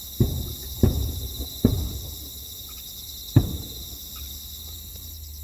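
Fireworks shells bursting with deep booms: three in quick succession about a second apart, then one more a little past three seconds in. Under them runs a steady high chirring of crickets.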